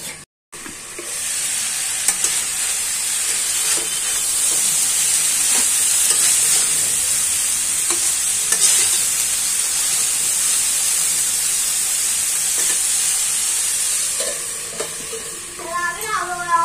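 Cauliflower and onions sizzling steadily in oil in a steel kadhai. Now and then the spatula stirring them gives a faint scrape or tap.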